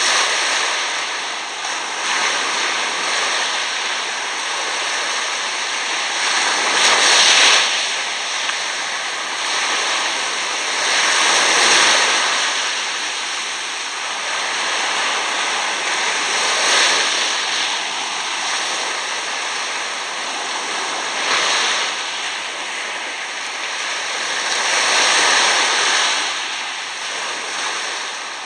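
Small waves washing up over coarse sand and drawing back, a continuous foamy hiss that swells every few seconds as each wave comes in.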